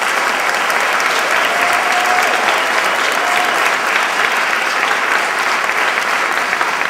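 Audience applauding, a steady, loud round of clapping.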